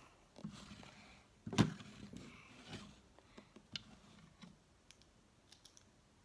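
Plastic Lego pieces and a minifigure being handled on a table: a string of small clicks and taps, the loudest about a second and a half in, then fainter ones spread out.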